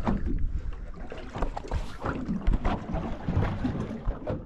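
Water slapping and knocking irregularly against the hull of a small boat on a choppy sea, with wind rumbling on the microphone.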